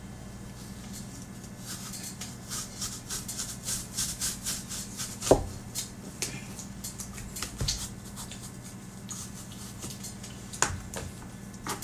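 A hand apple corer twisted down through a peeled apple: a quick run of crisp crunching scrapes as it cuts through the flesh, with a few sharp knocks, the loudest about halfway through.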